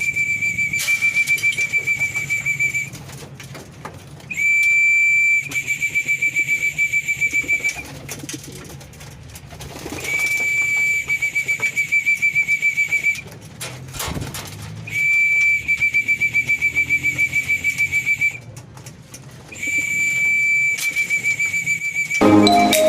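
A pea whistle blown in five long blasts about five seconds apart, each starting as a steady shrill note and breaking into a fast trill, calling the loft's pigeons in to feed.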